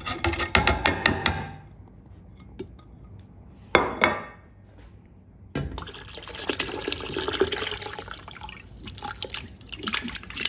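Canned vegetables and their liquid poured from glass jars into a large enamel stock pot, splashing, with a short pour at the start and a longer one from about five and a half seconds on. About four seconds in there is a single sharp knock.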